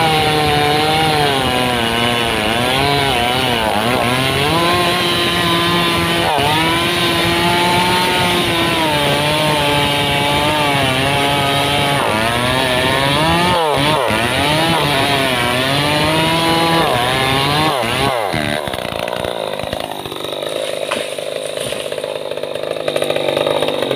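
Stihl MS 381 two-stroke chainsaw cutting at full throttle through the trunk of an old teak tree, its pitch sagging and recovering again and again under load. About three-quarters of the way in, the note changes and drops in level as the cut goes through.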